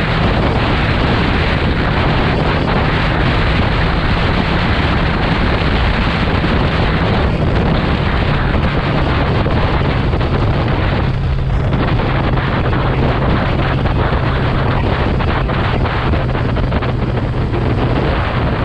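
Kawasaki motorcycle engine running at a steady cruise, its low, even note buried under heavy wind rushing over the microphone. The wind eases briefly about eleven seconds in.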